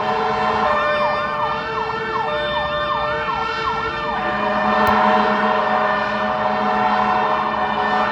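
Fire rescue truck's siren yelping in quick rising sweeps, about two a second, that stop about four seconds in, over a steady droning tone that continues throughout.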